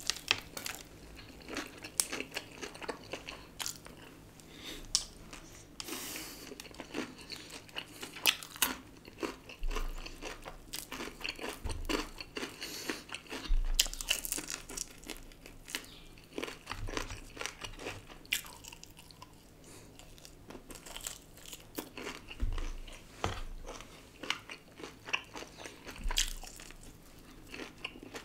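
A person biting and chewing crispy fried chicken, with irregular crunches of the breaded coating and chewing between them.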